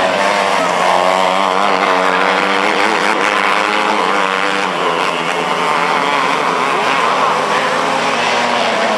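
Several 250-class winged micro sprint car engines running at high revs on a dirt oval, their pitches wavering up and down as the cars lap through the turns.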